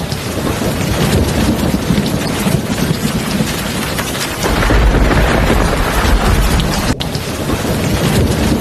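Heavy rain falling steadily, with a low thunder rumble swelling about halfway through.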